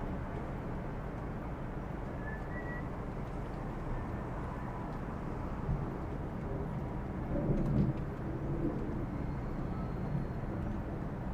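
Outdoor background: a steady low rumble like distant traffic, with a few faint bird chirps and a short louder low sound about seven and a half seconds in.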